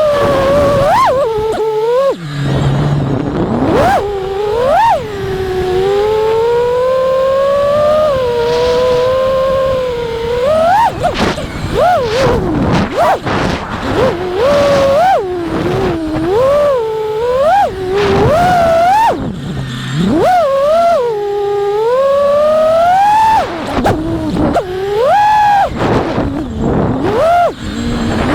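FPV racing quadcopter's brushless motors (T-Motor F60 Pro4 1750kv) and props whining. The pitch swoops up and down constantly as the throttle is punched and chopped during freestyle flight, with brief dips where the throttle is cut.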